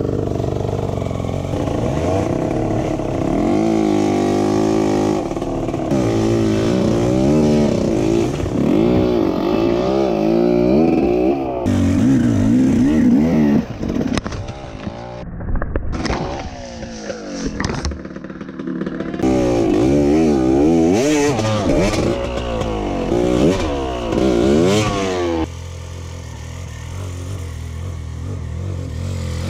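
Dirt bike engine revving hard under load, its pitch rising and falling again and again as the throttle is worked. It drops away and comes and goes about fourteen seconds in, revs hard again around twenty seconds, then settles to a steadier, lower note near the end.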